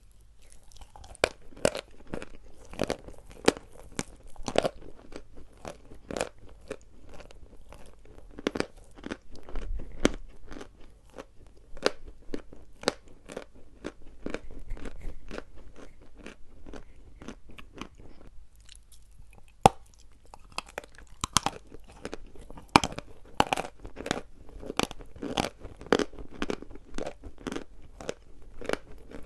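Pieces of dry edible chalk being bitten and chewed: a rapid, irregular series of crisp crunches, pausing briefly about two-thirds of the way through before a sharp snap and more crunching.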